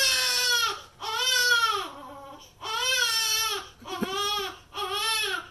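A baby crying: about five long wails, each rising and then falling in pitch, with short pauses between them.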